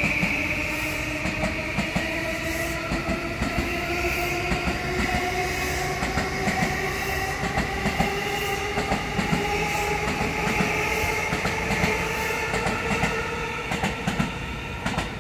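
E235 series electric train accelerating away: its traction motors and inverter give a whine of several tones that climbs steadily in pitch, over a rapid clatter of wheels crossing rail joints.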